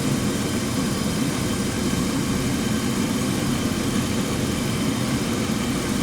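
2004 Jeep Grand Cherokee engine idling steadily with the AC on max while refrigerant is charged into the system; no distinct compressor clutch click stands out.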